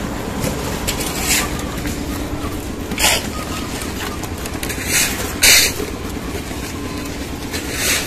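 Concrete mixer machine's engine running steadily on a roof-slab pour, with several short scrapes of wet concrete being tipped and spread over the steel rebar.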